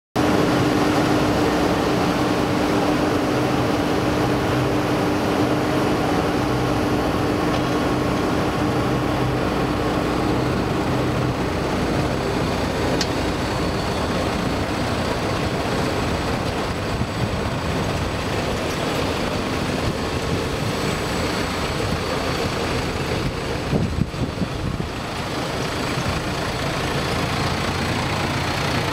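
Diesel engine of a Unimog snow-plow truck running steadily as the truck drives slowly, pushing snow with its front plow blade. A steady hum in the engine note fades out about halfway through, and there are a few knocks near the end.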